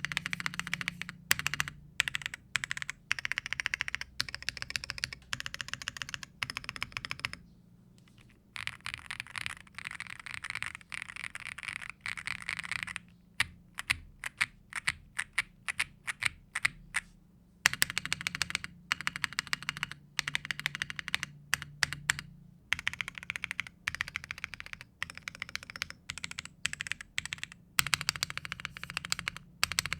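Typing on a Womier RD75 75% mechanical keyboard in stock form: factory-lubed full-POM linear switches under double-shot PBT Cherry-profile keycaps, gasket mounted. Fast, continuous keystrokes, with a short pause about seven seconds in and slower, separate key presses in the middle.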